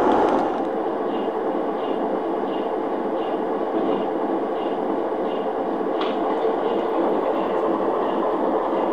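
Lionel O-scale model train running past on three-rail track: a steady motor hum and wheel rumble, with a soft click repeating about every two-thirds of a second and one sharper click about six seconds in.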